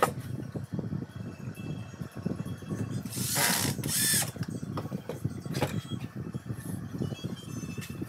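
Home-built grinding machine running with a steady rattling mechanical clatter, and two loud hissing bursts about halfway through.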